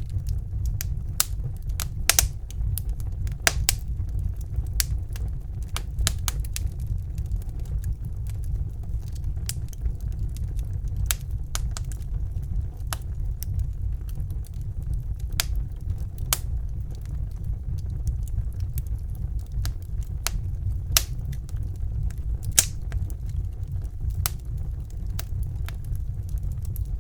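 Wood fire burning in a fireplace: a steady low roar of the flames with irregular sharp crackles and pops from the burning logs.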